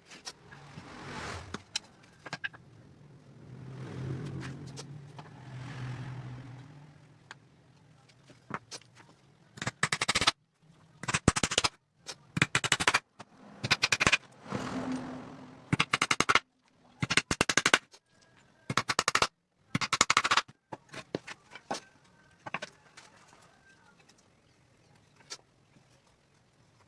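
A power tool fires in short start-stop bursts of rapid hammering clatter, typical of a cordless impact driver driving screws into wood. Before the bursts come a few softer rasping swells.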